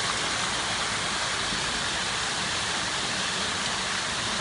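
Water rushing steadily along a mill channel: an even, unbroken hiss.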